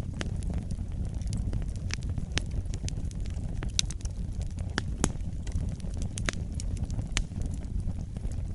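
Fire burning in a fireplace: a steady low rumble of flames with irregular sharp crackles and pops, several of them louder than the rest.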